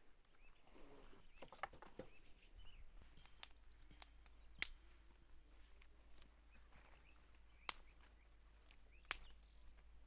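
Dry twigs snapping sharply as kindling is broken by hand, about five separate snaps a second or more apart, after a few footsteps on the forest floor at the start. Faint birdsong behind.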